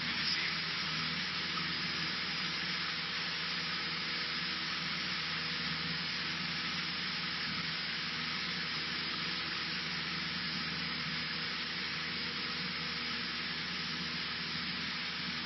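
Cessna 152's four-cylinder Lycoming engine and propeller running at constant power: an even drone with a steady hum of fixed engine tones and no change in pitch.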